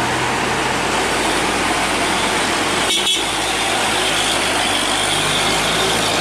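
Hino cargo truck's diesel engine running under a steady rush of road and wind noise as the truck pulls round a tight bend, with a brief dropout about three seconds in.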